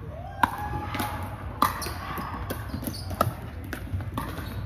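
Pickleball rally: a paddle striking the hollow plastic ball three times, each a sharp pop, about a second and a half apart. Fainter pops from play on neighbouring courts fall between them.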